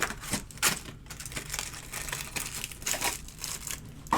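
Trading-card pack wrappers crinkling and tearing as packs are opened, in irregular rustles with a sharper snap near the end.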